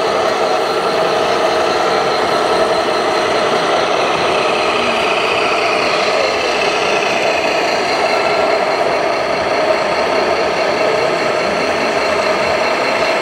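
Radio-controlled model vehicle running, giving a steady engine-like hum made of several constant pitched tones.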